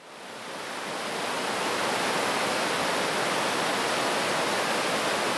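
Steady rushing wash of ocean surf noise, fading in over about the first second and a half, then holding even without distinct wave surges.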